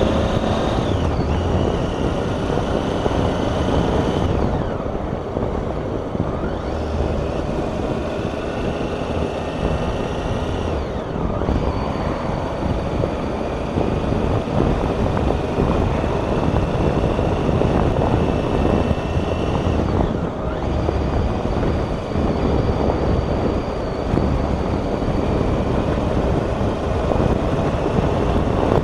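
Motorcycle riding along at road speed, heard from the rider's helmet: a steady rush of wind and road noise with the engine running under it. The higher part of the sound dips briefly three times.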